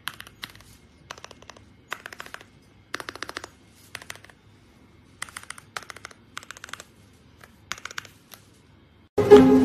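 Mechanical keyboard fitted with Gateron Baby Kangaroo 2.0 tactile switches being typed on in short bursts of rapid key clacks, with brief pauses between bursts.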